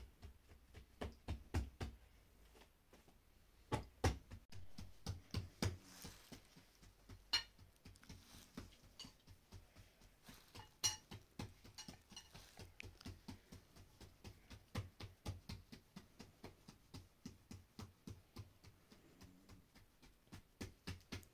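Knife slicing through mushrooms onto a plate: a steady run of light knocks, about two to three a second, with a couple of sharper clinks of dishes.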